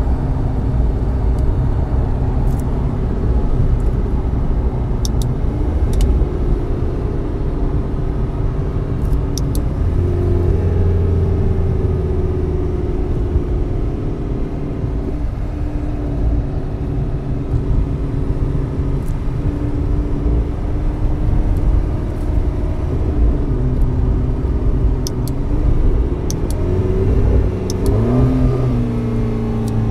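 McLaren twin-turbo V8 heard from inside the cabin, running at low revs with steady road and tyre rumble. Near the end the engine pitch climbs sharply as the car accelerates.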